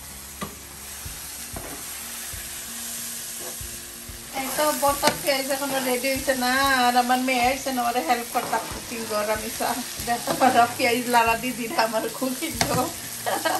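Sliced onions sizzling as they fry in a frying pan, stirred and scraped with a long metal spoon. The frying gets louder about four seconds in, with uneven scraping and clicking.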